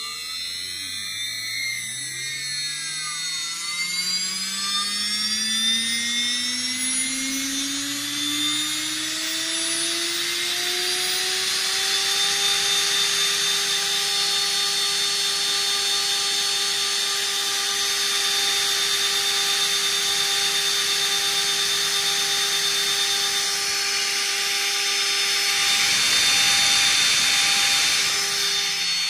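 1 kW CNC spindle motor running without its cooling fan, spinning up with a whine that rises in pitch over about twelve seconds and then holds steady at speed, with several high whining tones above it. A brief rushing noise comes near the end.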